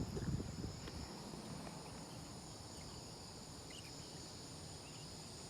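A steady, faint chorus of insects chirring high-pitched, like crickets, with a brief low rumble in the first second.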